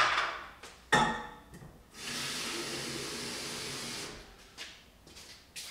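Two sharp knocks as things are handled, then a kitchen tap runs steadily for about two seconds and shuts off, filling a container with water for a potted houseplant.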